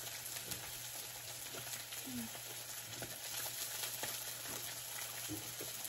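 Meat sizzling on an electric griddle: a steady frying hiss with scattered faint clicks.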